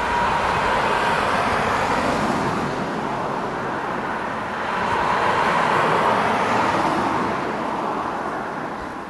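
Steady rushing noise of a moving vehicle, swelling twice and fading away near the end.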